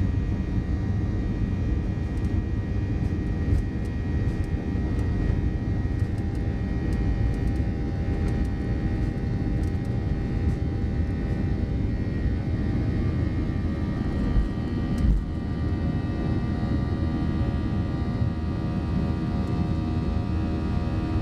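Cabin noise inside a Boeing 737-800 during its takeoff roll and climb-out: the CFM56-7B turbofans run steadily at high power, a dense roar with several steady whining tones over it. There is light rattling in the first half and a single thump about two-thirds of the way through.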